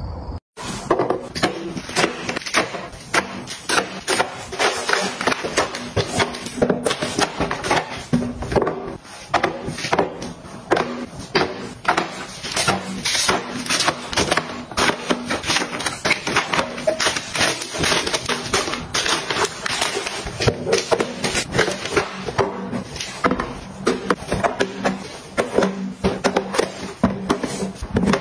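Plastic bottles, containers and paper-towel rolls being set down and shuffled into a plastic storage bin: a dense, irregular run of clacks, taps and knocks.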